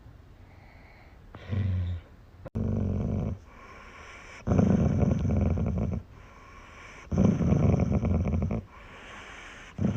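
A dog making a series of low, rough rumbling sounds in bursts of about a second each, with short quiet gaps between them.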